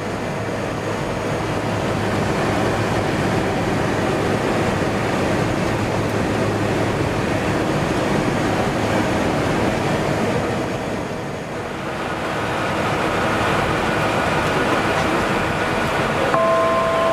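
Steady rushing noise inside the flight deck of an Embraer 170 jet in the climb, made by air streaming past the cockpit and the turbofan engines. It dips briefly about two-thirds of the way through, and a short steady electronic tone sounds near the end.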